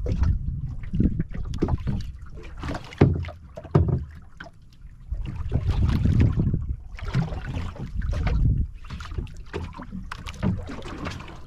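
Wind rumbling on the microphone and water splashing against the hull of a small outrigger boat at sea. The noise comes and goes in gusts, with two sharp knocks about three and four seconds in.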